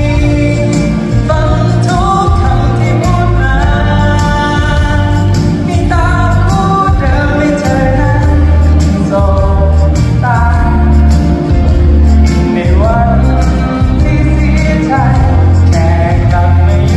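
A singer's amplified voice singing a pop song live over a backing track with a steady bass line.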